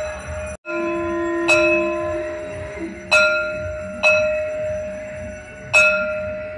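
Hanging temple bell struck four times, about one to two seconds apart, each stroke ringing on and fading before the next.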